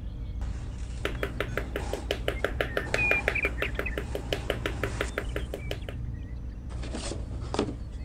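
Small rubber-headed mallet tapping wooden posts down into sand: quick, even taps, several a second, for about five seconds, then a brief rustle near the end.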